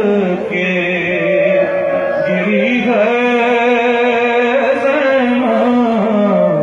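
A male reciter singing an Urdu noha, a Shia lament, through a microphone, drawing out long held notes that waver and glide in pitch.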